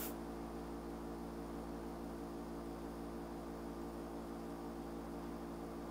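Steady low electrical hum with several fixed tones and a faint hiss: the recording's background noise, with nothing else happening.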